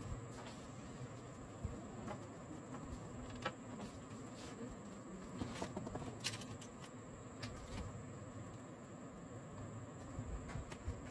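Cardboard pieces being handled and set down on a tabletop: scattered light taps and clicks over a faint steady hum with a thin high whine.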